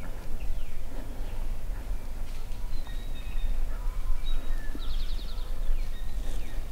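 Songbirds calling in woodland, with a short fast trill about five seconds in, over a steady low rumble.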